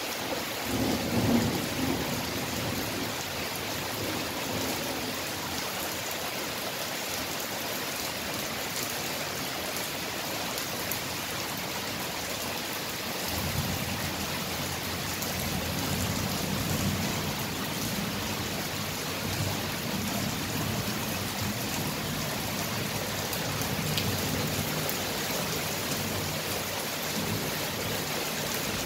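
Steady rain falling, with thunder over it. A loud rumble comes about a second in, and a long rolling rumble of thunder starts about halfway through and slowly fades.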